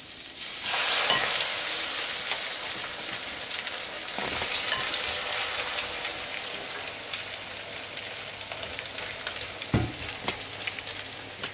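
Egg-coated pasta sizzling in a frying pan of hot melted fat as it is spooned in. The sizzle jumps up just under a second in and slowly eases, with a few knocks and scrapes of a silicone spoon spreading the pasta in the pan.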